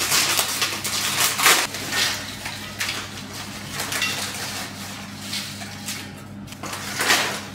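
Crinkling plastic snack bag being handled and shaken, with crisp lentil bites tipped out of it onto a ceramic platter. The crackling is densest in the first couple of seconds and again near the end.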